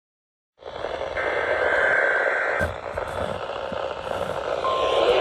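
Weak, noisy reception of a NOAA Weather Radio station: steady radio static, with a faint higher tone for about a second and a half soon after the start. Near the end a faint steady tone comes on under the static, the 1050 Hz weather radio warning alarm that opens a weekly test. It begins with a brief moment of dead silence.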